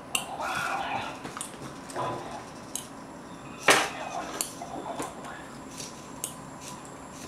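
Small clicks and taps from hobby-electronics parts being handled on a wooden desk: a servo, its wiring and connectors, and a perfboard. One sharp, louder click comes about halfway through.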